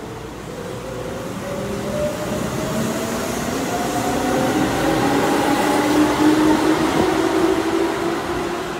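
Keihan electric commuter train moving along the platform and gathering speed. Its motor whine rises steadily in pitch and grows louder over the rumble of wheels on the rails, with a single click about seven seconds in.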